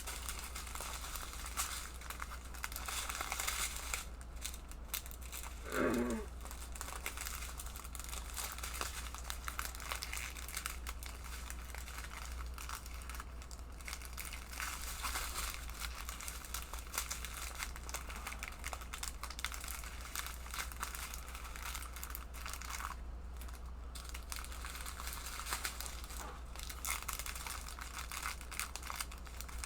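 Plastic packaging of a diamond-painting kit crinkling and rustling as it is handled and rolled back up, described as a little loud. A short pitched vocal sound rises and falls about six seconds in.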